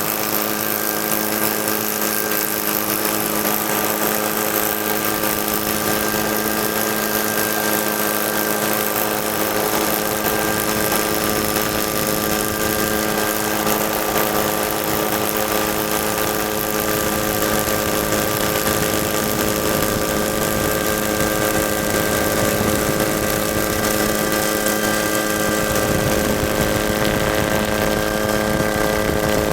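Helicopter running steadily: an even drone with several whining tones that hold one constant pitch.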